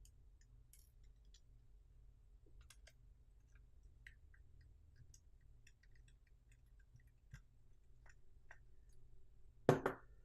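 Faint, scattered small clicks and ticks of a precision screwdriver and tiny screws being handled on a small action camera's plastic body, with a short louder clatter of clicks near the end.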